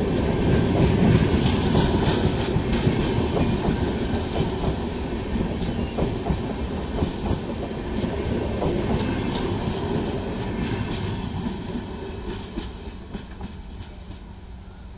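Passenger coaches of an express train rolling past on the track, wheels clattering over the rail joints. The sound fades over the last few seconds as the end of the train goes by, and a steady low hum comes in near the end.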